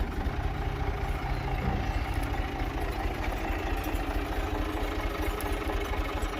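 Tractor engine running at a steady speed, driving a wheat thresher.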